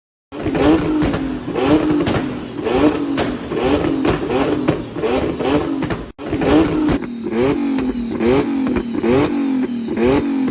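Twin-turbo Nissan 350Z's V6 engine revved in quick repeated blips, the pitch rising and falling again and again, with a short break about six seconds in. A thin steady high whine joins in from about seven seconds in.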